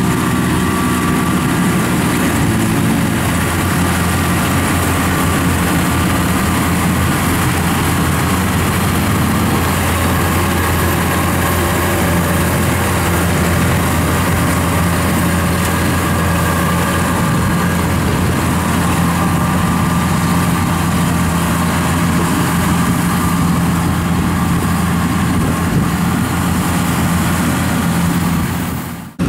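Kubota DC70 rice combine harvester running while it cuts and threshes rice: a steady, loud engine drone with constant higher machine tones from the threshing drive.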